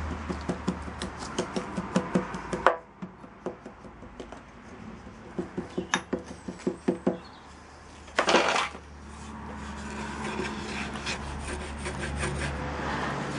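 Wooden rammer thumping foundry sand down into a wooden moulding box, a run of dull knocks about two or three a second, with a brief loud rush of sand a little past eight seconds. From about nine seconds in, a wooden bar scrapes across the top of the box, striking off the excess sand.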